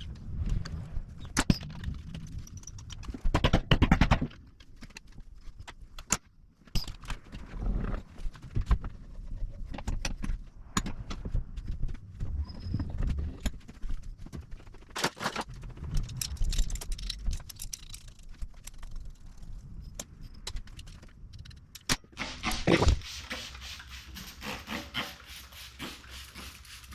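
Hand-tool work on a motorcycle tire and wheel: irregular clanks, knocks and scrapes of metal tools against the rim and rubber, loudest in a cluster of knocks about three seconds in. A steady hiss comes in near the end.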